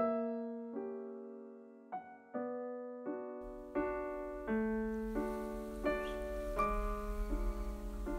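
Background music: gentle piano playing single notes and chords, a new note about every three quarters of a second. A faint low hum joins about three and a half seconds in.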